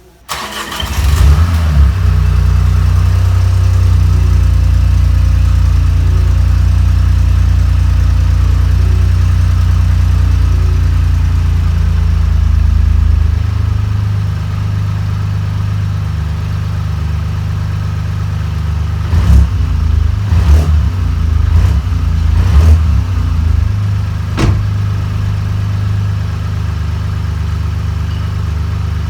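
BMW 218i Gran Coupe's 1.5-litre turbocharged three-cylinder petrol engine cranking and catching, then running at a raised start-up idle that drops to a lower, quieter idle after about thirteen seconds. A handful of quick throttle blips follow before it settles back to idle.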